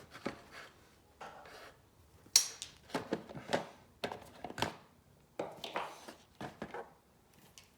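Irregular small taps, clicks and scrapes of hand work on the opened cassette multitrack's circuit boards and test probes. The sharpest click comes about two and a half seconds in.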